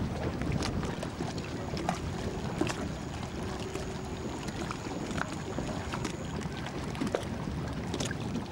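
Steady rumbling noise of a boat on the water, with wind on the microphone and scattered light clicks.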